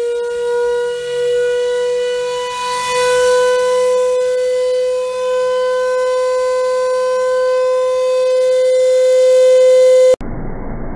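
Washing machine's universal motor, hot-wired straight to the mains for maximum speed, running with a loud steady whine that creeps slowly higher in pitch as it spins the drum up. About ten seconds in the whine cuts off suddenly, replaced by a duller rushing noise.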